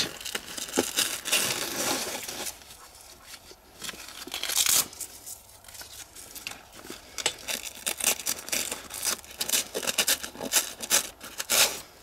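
A nylon hook-and-loop strap being pulled and threaded through a backpack's MOLLE webbing: repeated scraping and rustling of strap against webbing, with a few longer rasping pulls about two and four seconds in.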